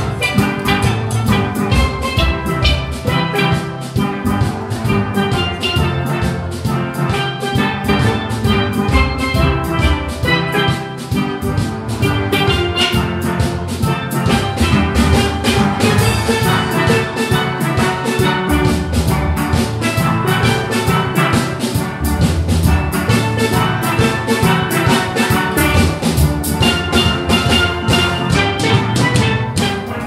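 A steelband playing: an ensemble of steel pans struck with sticks in quick rhythmic strokes, bright ringing notes over deep bass pans with a steady beat.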